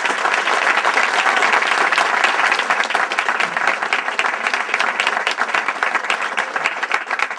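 A seated audience applauding: many hands clapping in a dense, steady patter that eases slightly near the end.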